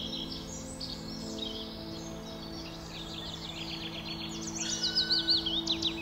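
Small songbirds chirping and singing, with a loud, rapid run of high chirps starting about four and a half seconds in. A steady low hum runs underneath.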